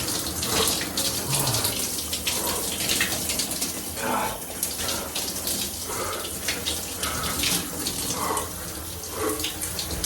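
Cold shower running, a steady spray of water splashing down.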